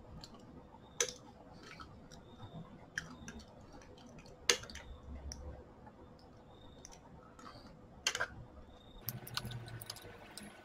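A spoon clinking against a bowl while scooping and stirring cornflakes in yogurt: about four sharp clinks several seconds apart, the loudest about four and a half seconds in, with fainter scraping between.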